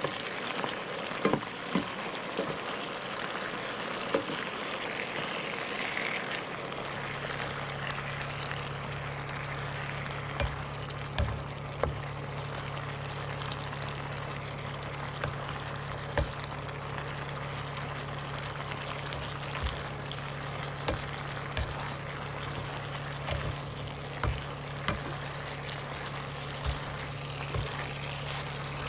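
Sauce simmering and bubbling around fish fillets in a nonstick frying pan, with a plastic spatula now and then clicking and scraping against the pan as the pieces are turned. A low steady hum comes in about six seconds in.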